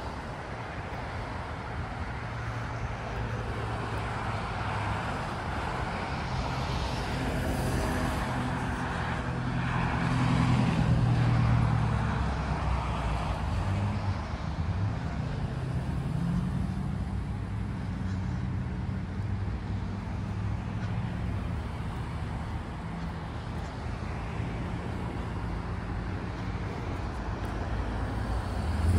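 Road traffic on an adjacent two-lane road: cars passing with engine and tyre noise, swelling loudest about ten to twelve seconds in as a vehicle goes by, then easing.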